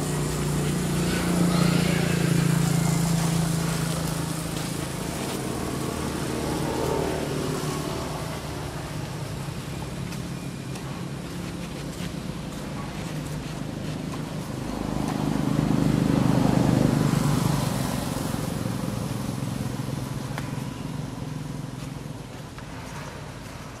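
Motor vehicles passing by, their engine hum swelling and fading away twice: loudest about two seconds in and again about sixteen seconds in.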